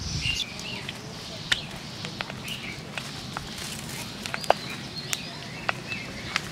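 Scattered sharp crackles and pops from a small wood fire burning under a clay cooking pot, with birds chirping.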